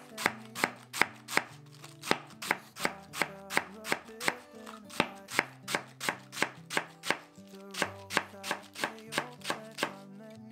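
Chef's knife finely shredding cabbage on a wooden cutting board: even, quick chops, about three a second. Soft background music runs underneath.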